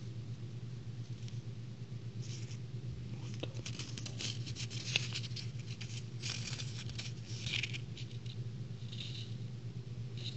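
A small roll of paper sticker tape being turned and unrolled in the fingers, with scattered light rustling and crackling over a steady low hum.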